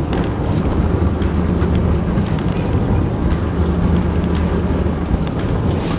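A fishing boat's engine running steadily at low revs, under a haze of wind on the microphone and sea noise, with a few faint knocks.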